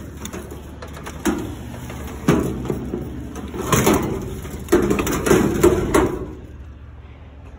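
Scrap metal being shifted in a mesh-sided trailer: an enamelled sheet-metal appliance and tubular metal chair frames knocking and clanking together in a series of separate knocks, stopping about six seconds in.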